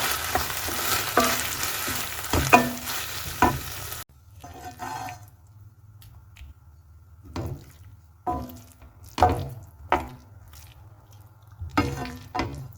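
Gobi Manchurian sizzling in a pan while a spoon stirs and scrapes through it. About four seconds in, the sizzling stops suddenly, leaving a handful of separate spoon scrapes against the pan.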